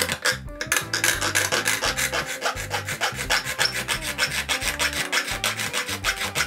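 Small round needle file rasping back and forth across the edge of a thin metal strip, in quick even strokes of about five a second.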